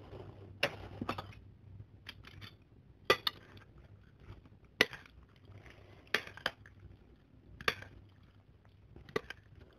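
A metal spoon and fork clinking and scraping against a bowl as noodles, meatballs and sauce are stirred together: about eight sharp clinks at uneven intervals.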